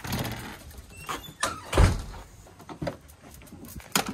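Doors being opened and shut, with one heavy thud a little under two seconds in as the loudest sound, and a sharp knock near the end.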